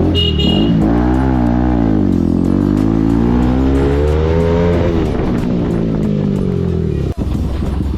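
Motorcycle engine revving and accelerating, its pitch climbing and dropping several times, with music underneath.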